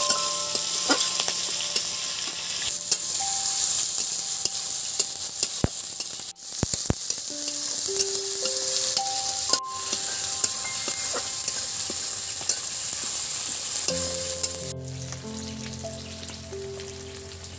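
Spices, tomato, ginger and chopped chilli sizzling in hot mustard oil in a kadai, with a spatula clicking and scraping against the pan as it is stirred. The sizzle breaks off briefly about six seconds in.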